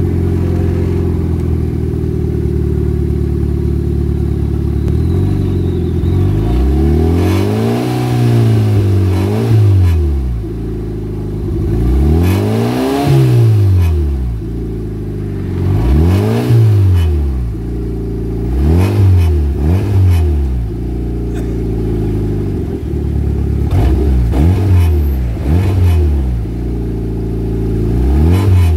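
Fiat 1.3 Fire Flex four-cylinder engine of a 2008 Fiat Fiorino idling, then revved with the throttle about six times. Each rev rises and falls in pitch, some come as quick double blips, and the engine drops back to a steady idle between them.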